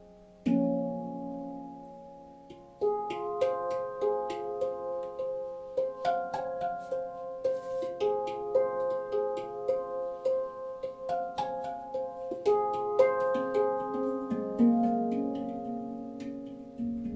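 Manik handpan in the F#2 Nordlys tuning, played with the fingers: a low note struck about half a second in rings out and fades, then from about three seconds a quick rhythmic run of ringing notes with light finger taps keeps going to the end.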